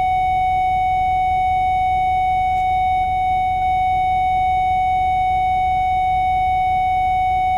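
Warning buzzer in a Mercedes-Benz Travego coach sounding one steady, unbroken mid-pitched tone over a low rumble.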